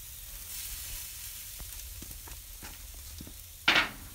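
Ground-bison burger patties sizzling on a charcoal cooker's grate over hot coals: a steady hiss with a few scattered pops. Near the end comes one short, louder burst of noise.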